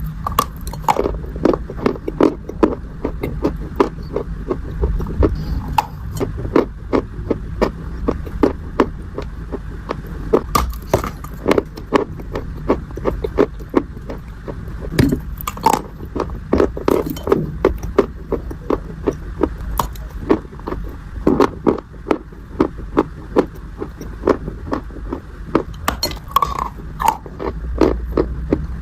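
Dry clay being crunched and crumbled, a dense irregular run of short sharp crackles and cracks over a steady low hum.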